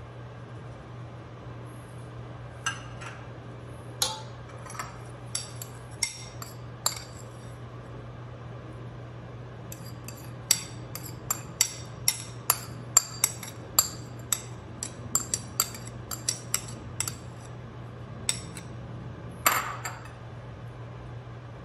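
Metal spoon clinking and tapping against a bowl and a stainless-steel pot while crushed ginger and garlic are spooned out: a few scattered taps, then a quick run of about two clinks a second, and one louder clink near the end.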